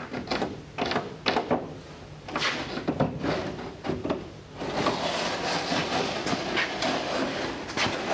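A pencil and a wooden block scraping and tapping across a plywood sheet as the splitter outline is traced: irregular scratchy strokes, thickening into near-continuous scratching about halfway through.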